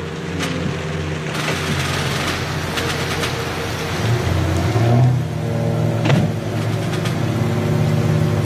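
Steady heavy rain over a low, constant droning hum, with a sharp crack about six seconds in.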